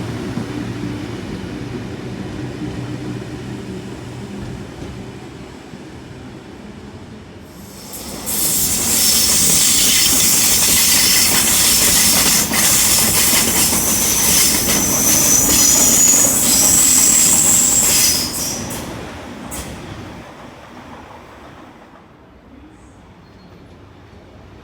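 A Sydney Trains train running past close by. About eight seconds in it comes up suddenly, loud, with a high-pitched wheel squeal and the clatter of wheels over rail joints. It drops away quickly about ten seconds later and fades out, after a low rumble that dies away over the first few seconds.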